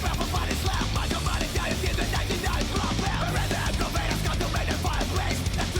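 Fast thrash metal with hardcore punk elements: distorted guitars and pounding drums playing at a steady, loud level.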